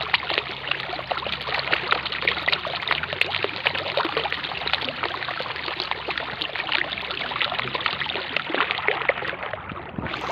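Mountain stream running: a steady rush of water with many small splashes and trickles.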